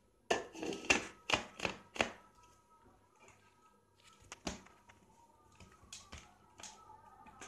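Hard plastic clicks and knocks as a blender set's chopper bowl, lid and motor unit are handled and fitted together: a quick run of sharp knocks in the first two seconds, then single knocks about halfway through and a few more near the end. The motor does not run.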